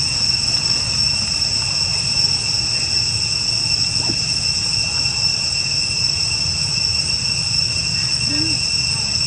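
A steady, unbroken drone of insects, a shrill chorus of several high pitches held without a break, over a low steady rumble.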